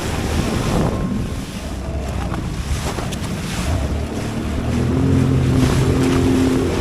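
A watercraft engine running steadily over wind buffeting the microphone and the wash of water; the engine grows louder about two-thirds of the way in.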